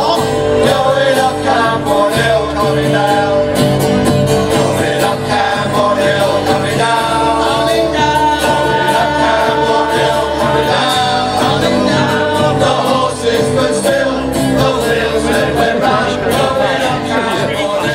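Music: a group of voices singing together with instrumental backing and a steady beat.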